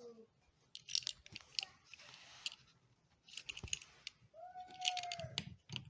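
Clicks, taps and scraping of hand tools working on an electrical outlet being replaced, with a brief squeaky tone about four and a half seconds in.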